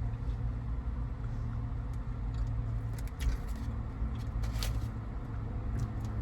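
Steady low rumble of a car engine heard from inside the car, with a few soft clicks about halfway through.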